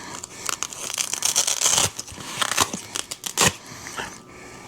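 Handling noise from a food delivery bag and its dividers being fitted: rustling and crinkling with sharp clicks, and a short ripping stretch about a second in.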